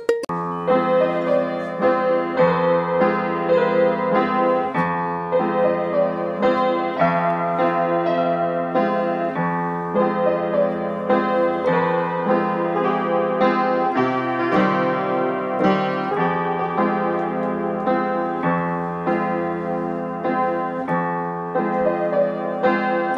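Piano playing a steady, unhurried piece: chords under a melody line, the bass note changing every couple of seconds.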